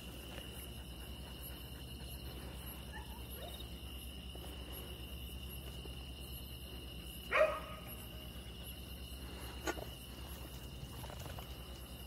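Crickets chirp steadily in the background. About seven seconds in, a dog gives one loud single bark, and a shorter, fainter sound follows about two seconds later.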